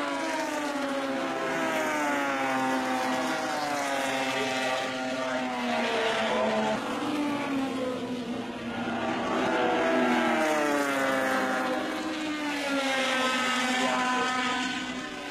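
Racing touring cars' engines going past one after another, each engine note falling in pitch as the car goes by.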